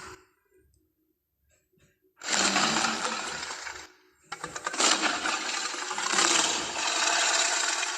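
Monster vocalization sound effects for the Rhedosaurus: a harsh, noisy call about two seconds in lasting under two seconds, then a longer, rasping one from about four seconds in.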